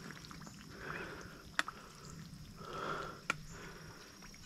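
Faint sloshing of someone wading through shallow, muddy pond water: two soft swishes about two seconds apart, with two short sharp clicks in between.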